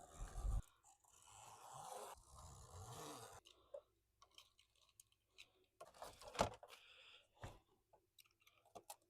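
Faint crunching and scraping of window screen mesh being trimmed and handled, then scattered light clicks and taps, the sharpest about six and a half and seven and a half seconds in.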